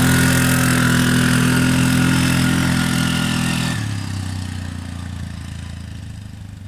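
Polaris Sportsman ATV engine running as the quad drives away, its sound fading steadily. About four seconds in, the engine note suddenly turns duller.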